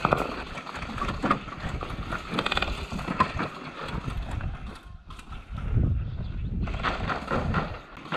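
Footsteps on sandy dirt and the rattle of an airsoft rifle and gear being handled as a player moves quickly between cover. The knocks are irregular throughout.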